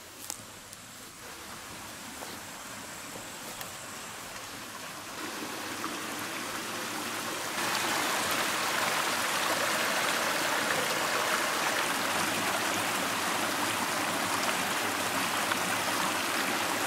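Shallow forest stream running over rocks: a steady rush of water that swells over the first several seconds, jumps louder about halfway in, and then holds steady.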